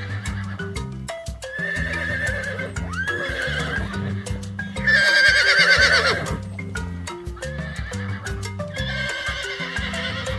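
Horse whinnying again and again, each call a wavering cry that falls in pitch. The loudest whinny comes about five seconds in. Background music plays underneath.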